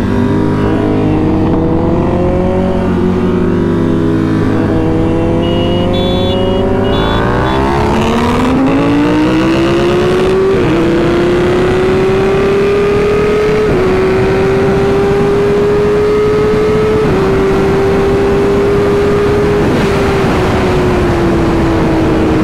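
Kawasaki ZX-6R inline-four engine under hard acceleration from a roll: after several seconds of cruising it is opened up about seven seconds in and climbs in pitch, with four upshifts each heard as a sudden small drop in the note, then eases off near the end. Wind rush on the microphone lies under it.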